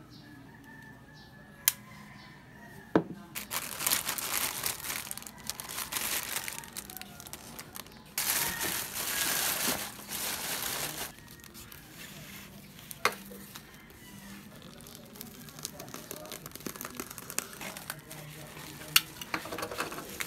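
Plastic packaging crinkling and tearing as a parcel is unwrapped by hand, with a few sharp clicks. The loudest part is a steady rip of about three seconds near the middle.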